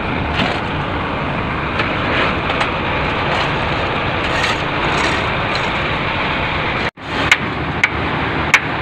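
Steady vehicle rumble in a workshop. In the last couple of seconds there are a few sharp metallic clinks of a wrench on the truck's transmission.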